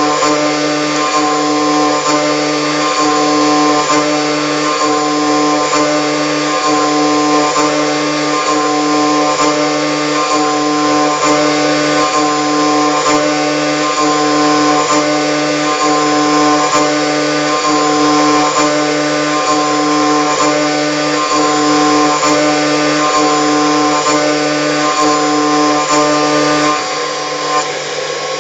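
CNC milling machine cutting a workpiece turned on a rotary axis: a steady, loud whine made of several pitches, broken by a short dip roughly once a second as the cutter works around the part. Near the end the cutting tones drop out and the machine runs on quieter.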